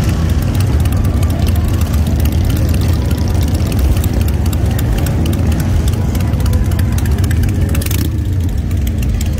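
Many cruiser motorcycle engines, mostly big V-twins, running at idle and low speed in slow, packed traffic, a steady loud low-pitched drone of overlapping exhausts.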